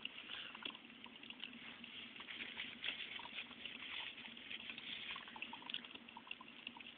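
Drip coffee maker brewing, with water sputtering and dripping through in irregular small pops and gurgles.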